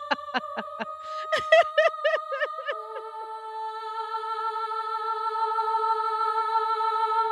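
Closing theme music: quick repeated staccato notes over a held tone, giving way about three seconds in to one long sustained chord that slowly grows louder.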